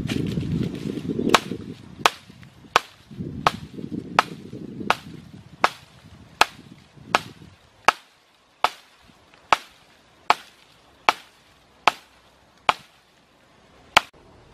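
Steady chopping: sharp strikes at an even pace, about one every three-quarters of a second. Low rustling noise lies under the first few seconds.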